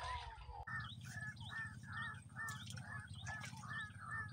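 A bird calling over and over, the same short note repeated about two to three times a second, starting about two-thirds of a second in. A low steady rumble runs beneath it.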